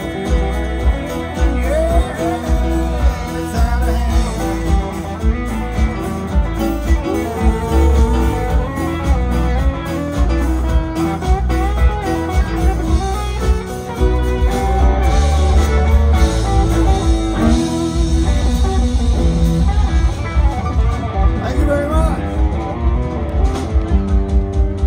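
Live country band playing amplified through a PA: fiddle, acoustic and electric guitars, bass and drums.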